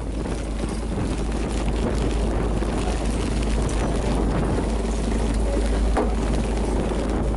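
Wind buffeting the microphone on a fishing boat in rough seas, with a steady rush of wind and water. A single short knock comes about six seconds in.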